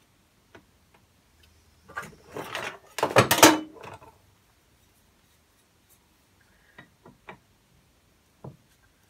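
Hand work on a workbench: a burst of rustling and clatter from about two to four seconds in as parts are handled, then a few light separate clicks near the end as a spanner goes onto the nut of an Andre Hartford friction damper.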